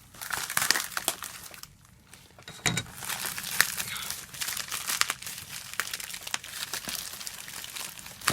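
Parcel packaging being cut and torn open with a makeshift tool in place of a utility knife: dense crinkling and crackling, with a short lull about two seconds in.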